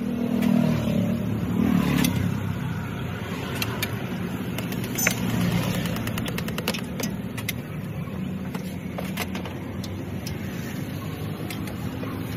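Street traffic passing in a steady low rumble, with scattered light clicks and knocks.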